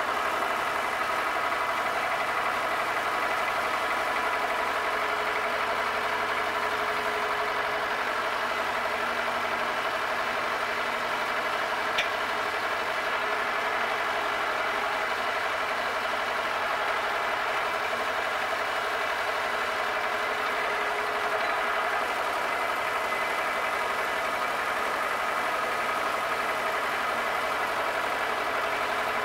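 Tractor engine running steadily while its front loader lifts, with one short click about twelve seconds in.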